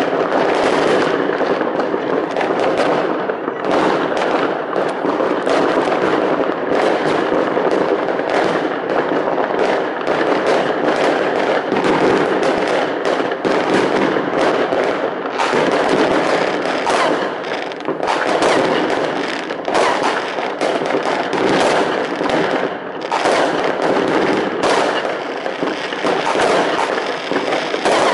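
Aerial fireworks going off in a dense, unbroken barrage: many overlapping bangs and crackling bursts, several a second.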